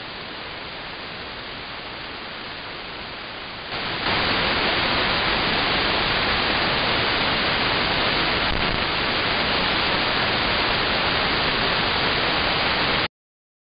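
Longwave AM radio static hiss from an online KiwiSDR receiver tuned to 225 kHz, with no programme showing through the noise. The hiss gets much louder a little under four seconds in and cuts off suddenly near the end.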